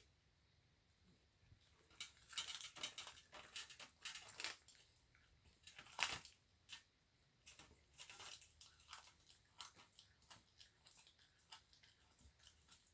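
A bobcat chewing raw chicken legs, its teeth crunching through the bones in quick, irregular cracks. The crunching starts about two seconds in, and the sharpest crack comes around six seconds.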